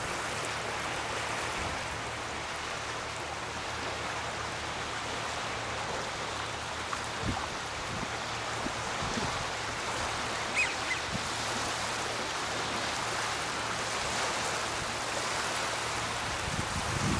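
Steady wash of small waves lapping on a pebble shore, with a short high chirp about ten seconds in.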